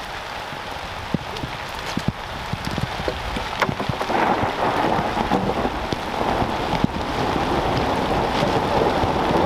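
Rain falling in a thunderstorm, a steady hiss with scattered sharp drop ticks close by. About four seconds in the rain grows louder and heavier.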